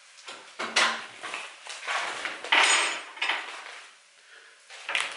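Plastic candy packaging crinkling and rustling in a few irregular bursts: a bag of Skittles being handled, then items rummaged in a gift basket.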